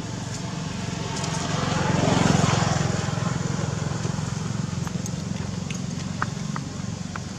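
Motor vehicle engine running steadily, with a rushing swell that peaks about two seconds in and fades, as of a vehicle passing.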